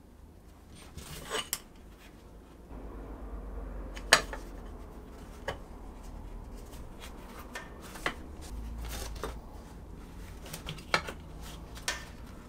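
Scattered sharp metallic clinks and knocks as aluminium jig plates, a press bar and a metal rod are handled and set in place on a kydex forming jig; the loudest knock comes about four seconds in.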